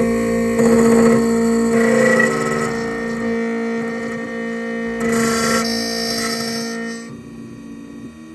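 Black Widow key machine's spindle running with a steady whine while its cutter mills a key blank, with two rougher grinding spells of metal cutting; the machine quietens near the end.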